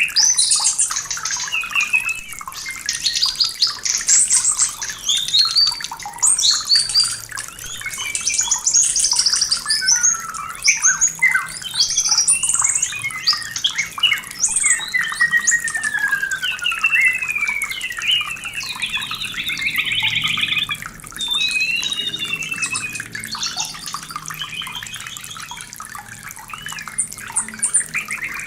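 White-rumped shama (murai batu) in breeding condition singing a long, varied song without a break: clear whistles, sweeping slurred notes and rapid trills. It is the kind of breeding-season song used as a bait call to provoke other shamas into singing.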